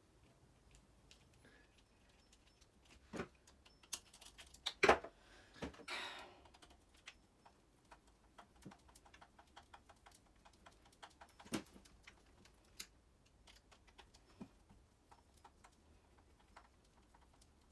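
Scattered small clicks and taps of plastic parts and hand tools being handled while reassembling an RC monster truck's front suspension, with a sharper knock about five seconds in.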